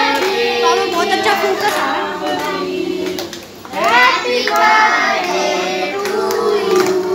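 A group of children and adults singing a birthday song together, with hand clapping along; the singing dips briefly about halfway through, then picks up again.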